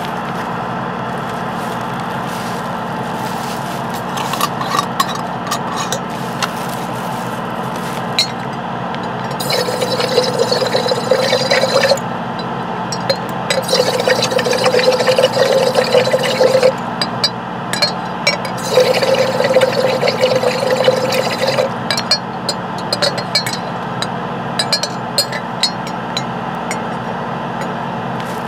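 Airbrush being cleaned: three bursts of air and cleaning fluid sputtering and bubbling through it, each two to three seconds long, over the steady hum of the air compressor. Small clinks and scrapes of the tools are scattered between the bursts.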